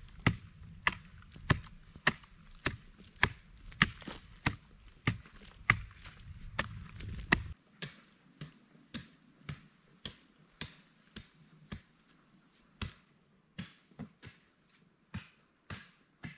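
A hand tool chopping in a steady rhythm, about one and a half sharp strikes a second. Around the middle the strikes become fainter and more distant but keep the same pace.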